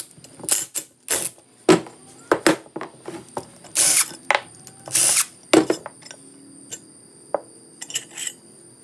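A cordless power tool with a socket spins out the 11 mm 12-point cap bolts on Eagle H-beam connecting rods in several short bursts, with metal clinks in between. After about six seconds only lighter clicks of the loosened bolts and rod cap remain.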